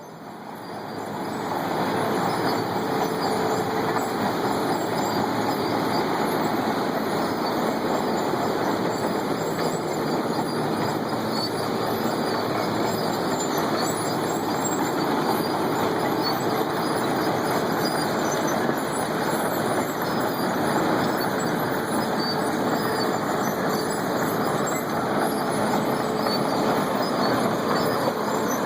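Heavy road-construction machinery, an asphalt milling machine with its trucks, running steadily while grinding off the street's asphalt. It is a dense, even noise with a faint steady hum, and it comes in over the first couple of seconds.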